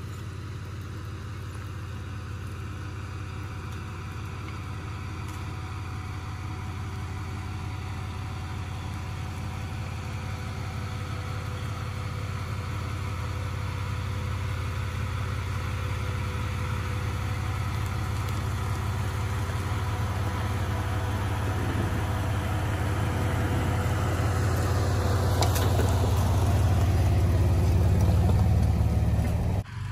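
Jeep Cherokee XJ engine running at low, steady revs as the lifted Jeep crawls down a dirt trail, growing steadily louder as it approaches and passes close by.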